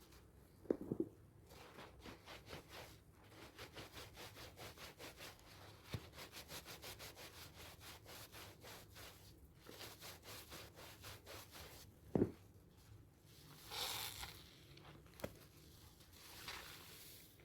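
Hard handmade sea salt and charcoal soaps being rubbed and lathered into foam, in a long run of quick, rhythmic wet rubbing strokes. There are a couple of sharper knocks, about a second in and near the two-thirds mark.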